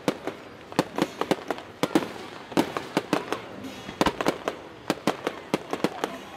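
Aerial fireworks going off in a rapid, irregular string of sharp bangs, coming in clusters with short gaps between.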